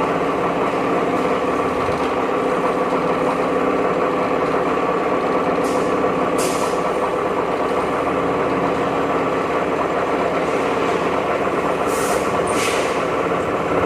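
Pile-driving machine's heavy engine running steadily, with no hammer blows. Brief hisses of released air or hydraulics come twice around the middle and twice near the end.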